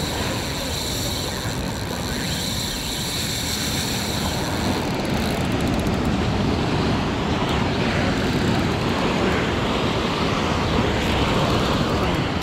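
Steady rushing noise of surf and wind, growing slightly fuller and louder about five seconds in.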